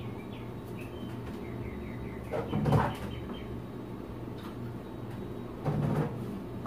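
A refrigerator door handled and things moved about inside it: two short knocks and clatters, the first about two and a half seconds in and the louder of the two, the second near the end, over a steady low hum.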